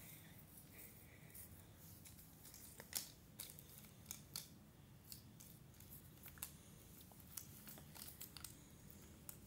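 Faint, scattered clicks and taps of cardboard jigsaw puzzle pieces being handled and pressed into place, the sharpest about three seconds in.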